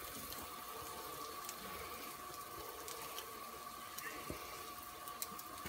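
Eggs, ham and cheese frying in a cast-iron skillet: a faint steady sizzle with a few small pops near the end, over a thin steady hum.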